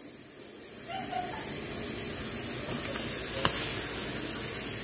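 A steady hiss that gets louder about a second in, with one sharp click about three and a half seconds in.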